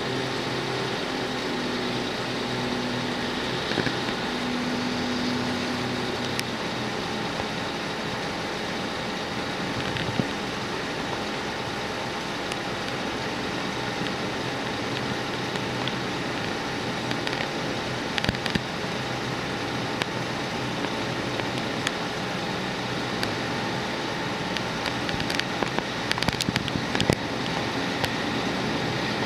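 Steady engine running with a low hum and a few held tones over a wash of noise. Scattered sharp clicks, a cluster of them near the end.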